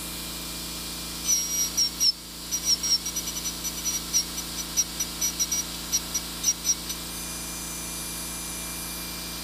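A high-speed dental drill with a #2 carbide round bur whines steadily. From about a second in to about seven seconds it pecks at stainless steel in quick, irregular touches, stippling the metal, and then only the steady whine remains.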